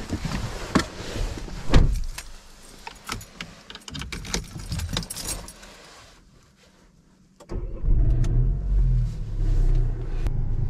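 Knocks, clicks and key rattles as someone climbs into a car's driver's seat and shuts the door. After a short quiet gap about seven seconds in, the car's engine starts and settles into a steady low idle.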